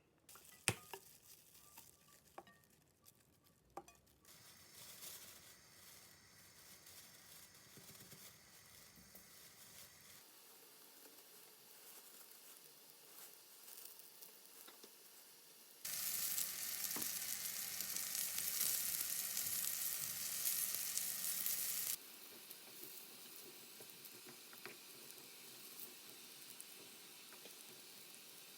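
Food sizzling in a frying pan, with a few sharp clicks and knocks at the start. The sizzle turns much louder for about six seconds past the middle, then drops back.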